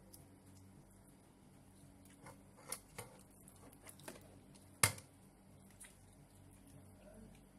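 Sparse light clicks and knocks of dishes, utensils and plastic food containers being handled at a meal table, the sharpest knock just before five seconds in.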